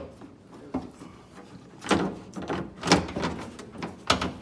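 Irregular clunks and knocks of a car door lock assembly being pushed and worked into the hollow metal inner door of a 2011 Kia Sorento, the loudest near three seconds in.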